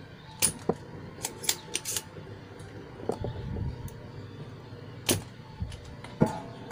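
Sharp clicks and taps of parts and tools being handled on an electronics repair bench: a quick run of them in the first two seconds, then a few single ones spaced out. A faint steady hum runs underneath.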